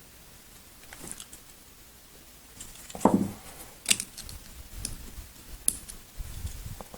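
Small metal parts of a CZ 75 SP-01 pistol clicking and knocking as they are handled and pushed into place during reassembly: a few scattered clicks, the loudest a knock about three seconds in, with sharper clicks near four and six seconds.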